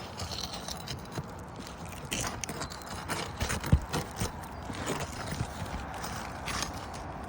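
A roof snake and hammer working staple fasteners loose under an asphalt architectural shingle: a string of irregular knocks, clicks and scrapes, the loudest a little before four seconds in.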